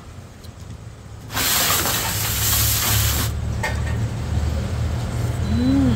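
A loud hiss about two seconds long sets in about a second in and cuts off. A motor vehicle's low engine rumble starts with it and carries on steadily.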